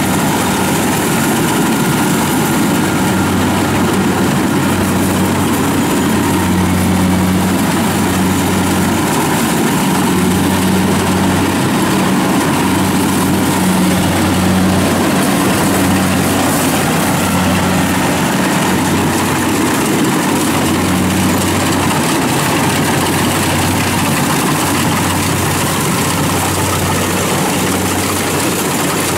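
Kubota DC70 combine harvester's diesel engine running steadily while it cuts and threshes rice, a low drone that swells and fades every second or so under a broad mechanical rush from the harvesting works.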